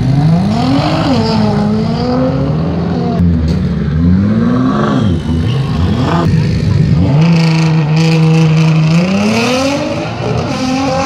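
Nissan GT-R race car's twin-turbo V6 engine revved up and down on the start line, then held at steady high revs for about two seconds before rising sharply as the car launches and accelerates away, fading near the end.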